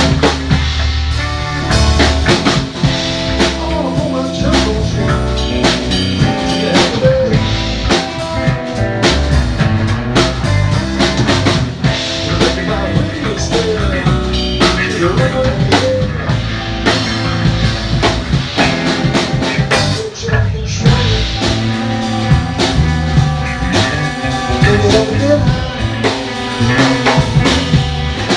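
Live band playing, with a drum kit beating steadily under guitar and some singing.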